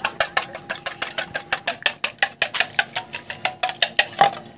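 Wire whisk beating two raw eggs in a metal bowl: fast, even clicking of the wires against the bowl at about seven strokes a second, stopping near the end.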